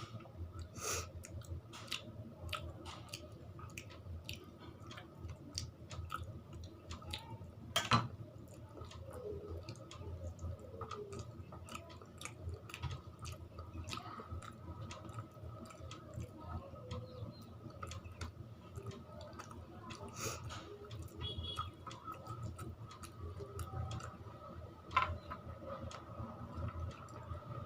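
A person chewing and smacking on mouthfuls of rice and curry, with many small wet clicks. Two louder clicks stand out, one about eight seconds in and another near the end.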